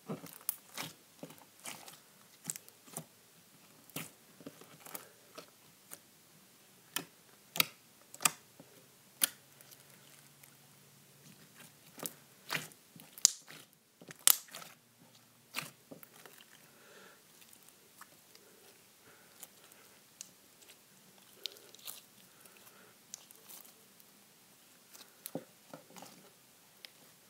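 Hands squeezing, folding and poking a glossy white slime, making irregular sharp clicks and pops as air pockets in it burst. The slime is very clicky, with the clicks thickest in the first half and sparser later.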